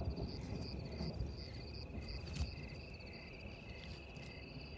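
Crickets chirping at night: a steady high trill with a second call repeating in short even pulses, a few times a second.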